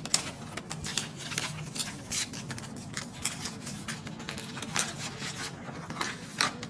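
Paper rustling and crinkling as a receipt and a card are handled, a string of short crisp rustles and taps, with a faint steady hum underneath.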